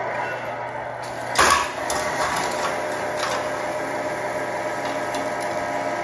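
Electric drivetrain of a Tamiya Grand Hauler 1/14 RC truck whining steadily as it drags an RC4WD Intimadator pull sled along a concrete floor. A single sharp clack comes about a second and a half in.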